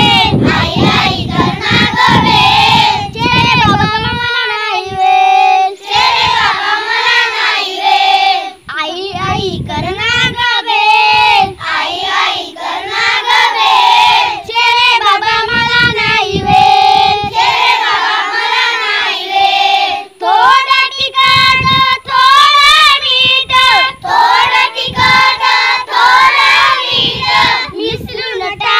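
A group of young children singing a Marathi poem together in chorus, unaccompanied, in a simple sing-song melody.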